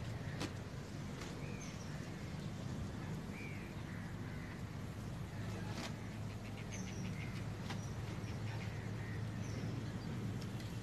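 Outdoor ambience: a few short bird chirps scattered over a steady low hum, with a quick run of faint ticks about two-thirds of the way through and a few single clicks.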